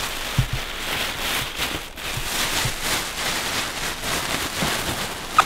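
A thin plastic bag rustling and crinkling steadily as it is handled and packed, with a few dull knocks about half a second in.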